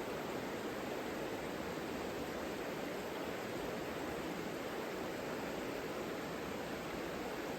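Savica river flowing: a steady, even rush of water with no change.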